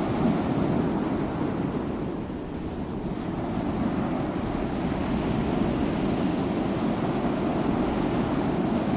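Sea waves washing in: a steady rushing surf that eases a little a couple of seconds in, then builds again.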